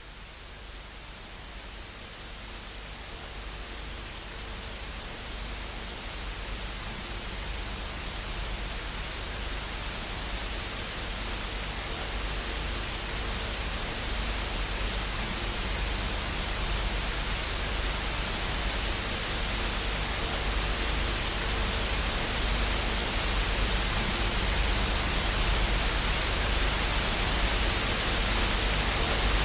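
Television static: the even hiss of an untuned TV, growing steadily louder throughout as it fades in, with a faint low hum underneath.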